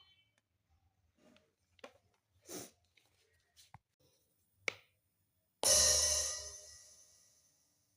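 Roland SPD-20X electronic percussion pad sounding a cymbal crash about five and a half seconds in, which rings and fades over about two seconds, after a few faint taps. The pad is producing sound while under test for a no-sound fault.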